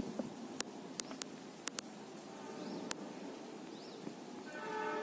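Quiet outdoor ambience beside a railway bridge with a few sharp clicks in the first three seconds and a high chirping call repeating about once a second. Near the end a distant train horn starts, one steady held chord.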